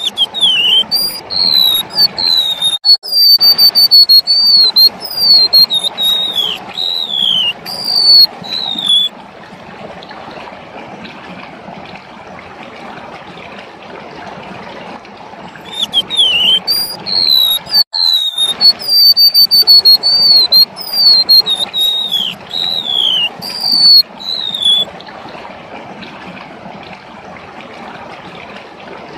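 Golden-bellied gerygone (remetuk laut) singing: two bouts of high, thin whistled notes, many sliding downward, each bout lasting about nine seconds with a pause between. A steady hiss runs underneath.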